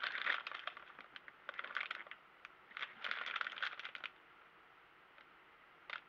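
Packaging rustling and crinkling in several bursts as hands rummage in a cardboard box, dying away about four seconds in, with a faint click near the end.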